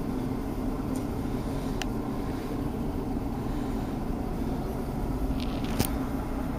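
Steady machine hum, an electric motor running without change, with a couple of faint clicks about two and six seconds in.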